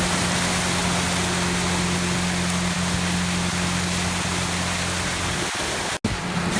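Small fishing boat's motor running at a steady hum under the rush of water and wind. The sound cuts out for an instant near the end.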